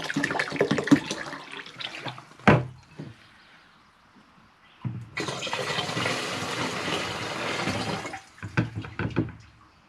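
Vinegar poured into a bottle, gurgling steadily for about three seconds. Before it come some clatter and a sharp knock, and a few knocks follow near the end.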